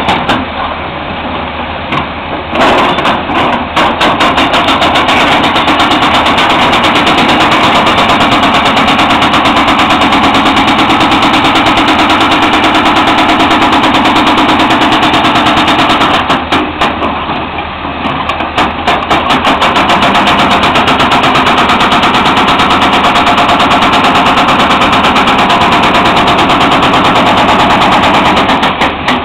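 Excavator-mounted hydraulic breaker hammering rock in rapid, even blows over the running diesel of a John Deere excavator. The hammering starts a couple of seconds in, breaks off for about two seconds past the middle, and resumes until just before the end.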